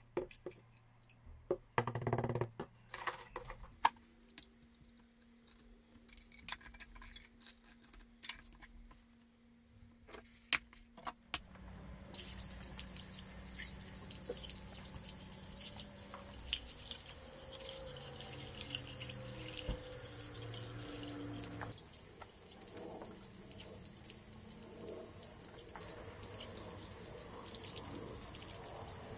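Scattered small clicks and knocks, then, about twelve seconds in, water starts running steadily from a tap.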